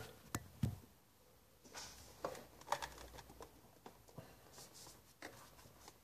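Faint scattered clicks and light handling rustles as the portafilter of a DeLonghi EC220 espresso machine is worked and twisted into the group head, two sharper clicks coming in the first second.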